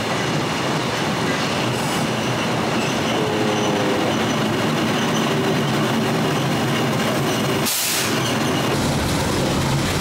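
Kurobe Gorge Railway trolley train rolling slowly through a station: a steady rumble of steel wheels on rails, with a short wheel squeal about three seconds in and a brief hiss near eight seconds.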